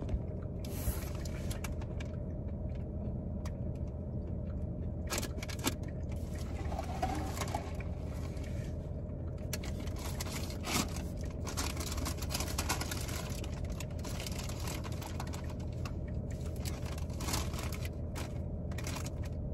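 Steady low hum of a stationary car heard from inside the cabin, with scattered light rustles and clicks over it.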